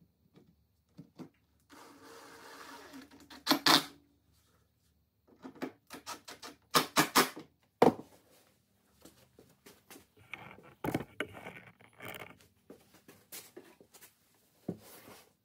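Cordless impact driver whirring briefly as it drives a screw, ending in sharp clicks, then a run of sharp wooden knocks and clicks as a drawer front is handled and pushed home, and a second short whir with more knocks later. Everything is sped up to double speed.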